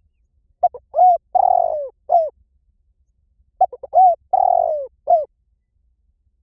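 Spotted dove cooing: two phrases about three seconds apart, each a few quick short coos, then a longer drawn-out falling coo and a short final coo.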